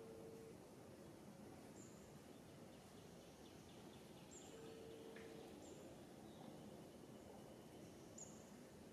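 Near silence: faint outdoor background with short, high bird chirps every couple of seconds and a low, steady tone held for about a second, twice.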